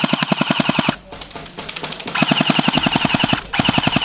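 Airsoft Mac-10 firing on full auto in rapid bursts of evenly spaced shots. About four bursts with brief pauses between them; the second burst is quieter.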